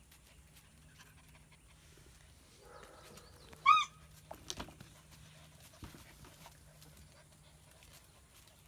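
German Shepherd puppy giving a single short, high yip about three and a half seconds in, followed by a few light clicks of paws on concrete.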